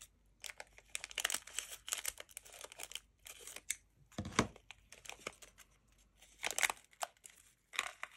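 Thin plastic packaging bag being cut open with scissors and handled, crinkling and tearing in irregular bursts, loudest a little past the middle.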